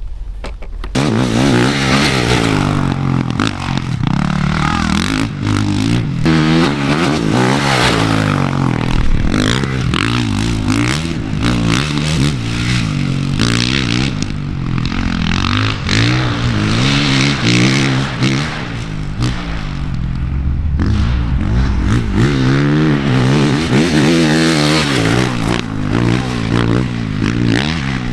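Motocross dirt bike engine being ridden hard on a dirt track, its pitch rising and falling again and again as the throttle is opened and shut through the gears. It starts suddenly about a second in, with some clatter from the bike over rough ground.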